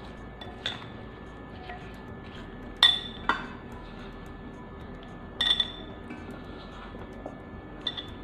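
Metal spoon clinking against a glass mixing bowl while stirring chopped raw mango in a thick spiced-oil pickle mix: a few light clinks, with two louder, ringing ones about three and five and a half seconds in.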